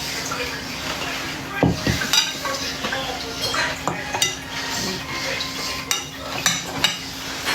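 Cutlery and dishes clinking and scraping, with scattered sharp knocks, over a steady low hum.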